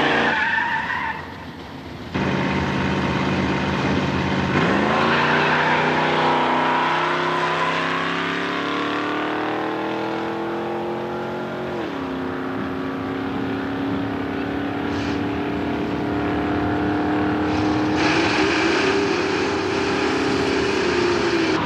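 Two drag-racing cars launching from the line, tyres squealing at the start. The engines then accelerate down the strip with a steadily climbing pitch that drops suddenly at a gear change about twelve seconds in, then holds fairly steady.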